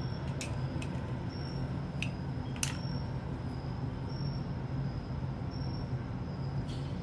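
Steady low room hum with a few short, faint clicks in the first three seconds.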